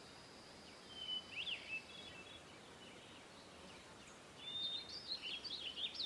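Faint high-pitched chirping calls over quiet outdoor background: a short run about a second in and a busier burst of chirps near the end.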